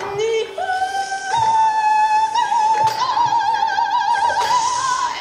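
A woman singing long wordless high notes that step upward in pitch, the top note held for several seconds with a wide vibrato.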